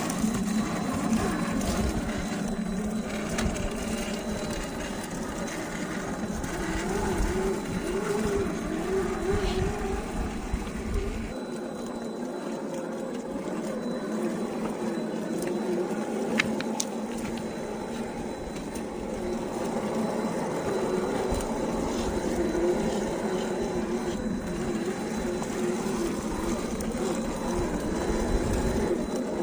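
The 45-turn brushed electric motor and geared drivetrain of an MST CFX 1:10 rock crawler whining as it crawls, its pitch wavering up and down with the throttle. There is a single sharp click about sixteen seconds in.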